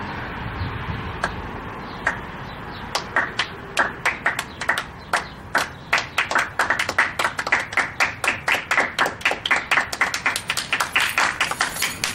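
A small group clapping their hands: a few scattered claps at first, then, from about three seconds in, steady applause at about four to five claps a second.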